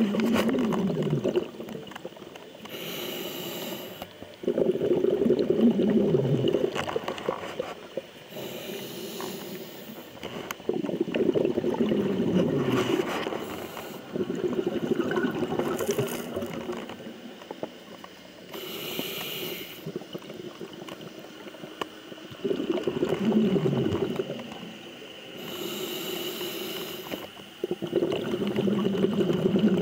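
Scuba diver breathing through a regulator underwater: short hissing inhales alternate with longer, louder exhales of bubbles, about one breath every five or six seconds.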